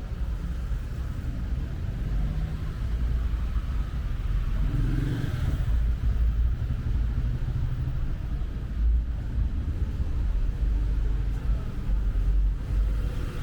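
Street traffic: a steady low rumble of car and motorbike engines, with one vehicle's engine note rising and falling briefly about five seconds in.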